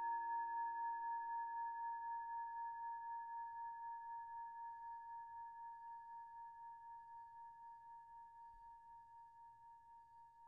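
A struck singing bowl ringing out, its tone pulsing about three times a second and slowly fading away. It is the chime that marks the start of a new hand position.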